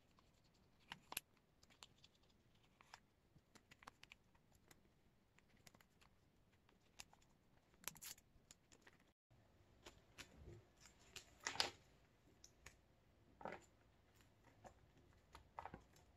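Faint handling of clear plastic photocard binder sleeves: scattered soft ticks, scrapes and crinkles as photocards are slid into the pockets and the page is pressed flat, with a louder crinkly cluster a little past the middle.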